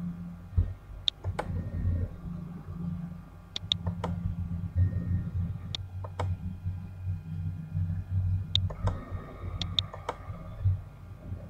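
Computer mouse clicks, some single and some in quick pairs, as circles are placed in CAD software, over a low steady hum.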